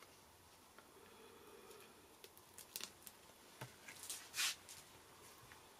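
Paper and card handled by hand on a craft mat: a few faint light clicks and taps, and one short paper rustle about four seconds in.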